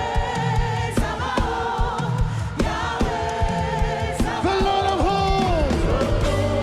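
Gospel praise music: a choir or worship singers holding long notes with some sliding pitches, over a band with a steady beat.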